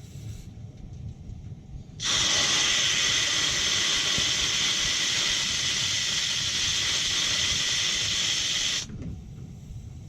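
Loud, steady hiss of water and trapped air being forced out through the purge hose of an air-bound hot-water heating loop. It starts suddenly about two seconds in and cuts off sharply about seven seconds later. A low rumble runs underneath.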